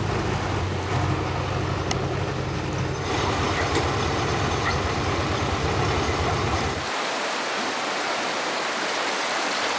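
A tractor engine runs steadily under the rushing of water; about seven seconds in, the engine sound cuts off and only the even rush of fast-flowing floodwater remains.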